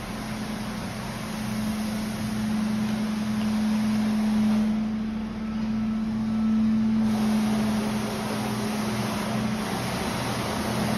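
Tennant floor scrubber running on wet concrete: a steady motor hum with a constant low tone over a rushing noise.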